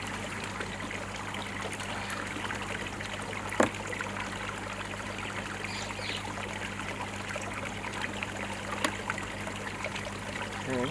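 Steady trickle of running pond water over a low, steady hum, with one sharp knock a few seconds in.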